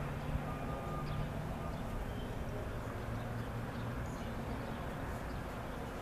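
Steady low background rumble, with a faint engine-like hum in the first second and again around three seconds in.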